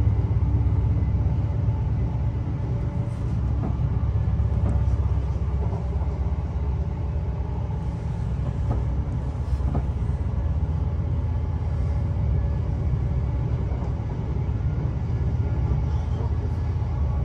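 Steady low rumble of a moving passenger train, heard from inside the carriage.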